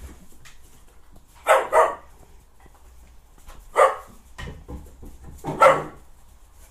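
Hungarian Vizsla puppies barking in play: a quick double bark, then two single barks about two seconds apart.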